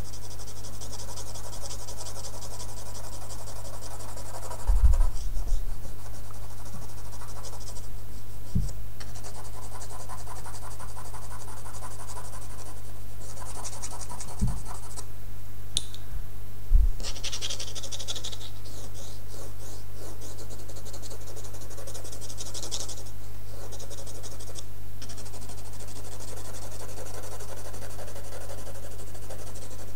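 Colored pencil and pastel scratching across paper in repeated shading strokes, coming in spells with short pauses. A steady low hum runs underneath, and there are a few brief knocks.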